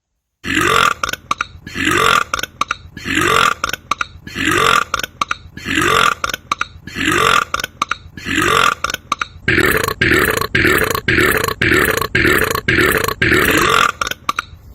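A man's loud belch, repeated over and over at a strictly even pace, about one every second and a bit, like a looped or edited burp sample. In the last third the repeats are chopped into a quicker stutter.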